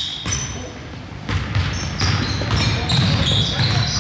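Basketball game sounds on an indoor court: the ball bouncing on the floor among the players' footsteps, with short high squeaks from sneakers on the court.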